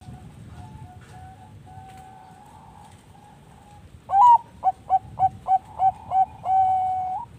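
Zebra dove (perkutut bangkok) calling: soft coos at first, then about four seconds in a loud song of one rising opening note, a quick run of about six short coos, and a long drawn-out final coo that lifts at the end.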